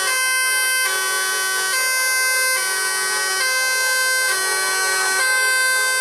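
Telolet horn on a tour bus playing a tune: a chord of several steady horn tones held, then stepping straight to the next, about once a second with no break.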